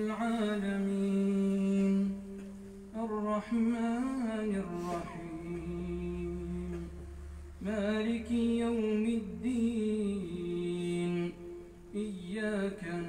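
A man's voice reciting the Quran in a melodic chant, in phrases of long held, wavering notes with short pauses between them.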